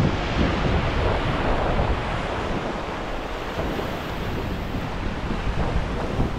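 Small ocean waves washing up over sand and stones at the water's edge, a steady surf wash, with wind buffeting the microphone.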